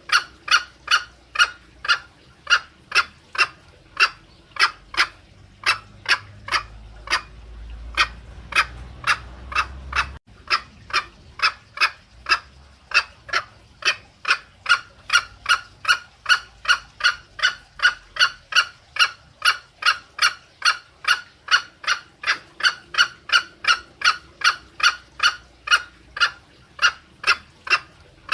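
Green junglefowl giving the rapid 'petrek' call used as a trapping lure: a long, even series of short clucking notes, about two to three a second. The series thins out briefly and breaks off abruptly about ten seconds in before carrying on.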